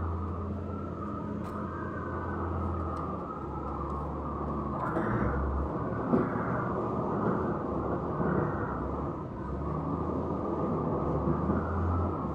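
Engine of heavy construction equipment running, a steady low rumble whose hum swells and eases a few times.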